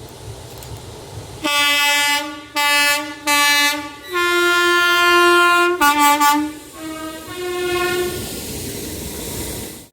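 Train horn sounded as a string of blasts on alternating low and high notes: three short low blasts, a long higher one, then a quicker run of shorter notes. Passing train noise runs under and after it.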